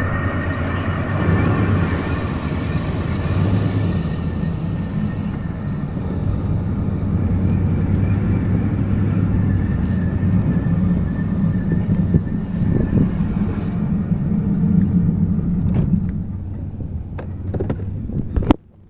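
Pickup truck driving slowly with a steady, loud low rumble, the weird rumble noise it still makes, a sign that it is not in the best condition. The rumble eases off about sixteen seconds in. A few sharp clicks follow, and the sound then drops away suddenly.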